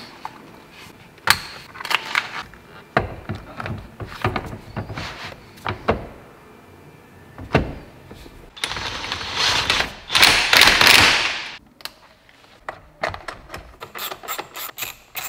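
Scattered clicks, knocks and plastic rattles of a steering wheel being fitted onto the column and its trim and airbag pushed into place, with a longer harsh rasp lasting a few seconds about two-thirds through and a quick run of clicks near the end.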